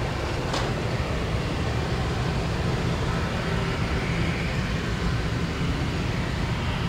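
Twin rear-engined private jet taxiing, its jet engines running at low power as a steady rumble. A single short click about half a second in.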